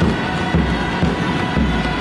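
Assyrian folk dance music played loud over PA speakers, with a steady bass beat.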